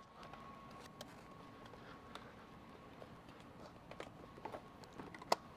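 Faint clicks and handling of a welding helmet's plastic inner cover lens as it is popped out of its holder, with one sharper click near the end.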